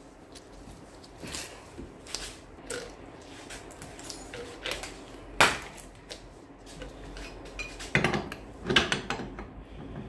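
Metal clicks and clanks of a pipe wrench gripping and turning the inner tie rod joint on a Kia Stinger electric steering rack, the tie rod coming off stiffly because its thread was secured with adhesive. One sharp knock about five seconds in and a cluster of clanks near the end.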